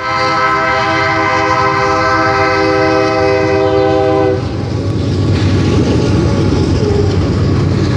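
Union Pacific freight locomotive's horn sounding one long chord of several notes, which cuts off after about four seconds. The rumble of the locomotive and freight cars rolling past continues after it.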